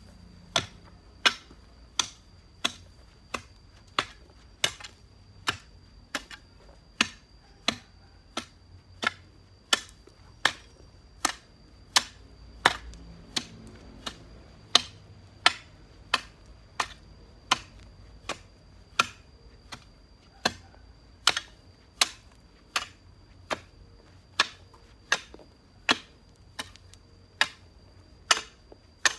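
A hoe chopping into the ground in sharp, even strokes, about three strikes every two seconds, over a faint steady high-pitched whine.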